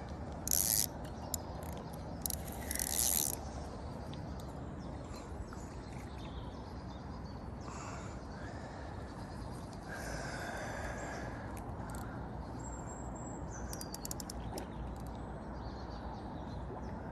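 Lakeside outdoor ambience: a steady background hiss and rumble with faint bird chirps. Two short, loud, hissy noises come in the first three seconds or so.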